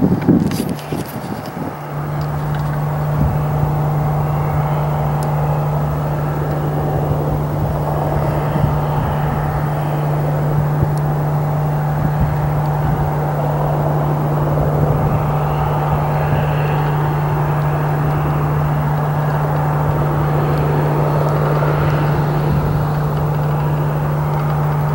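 Steady, unchanging low hum of an idling vehicle engine, with wind buffeting the microphone in the first two seconds.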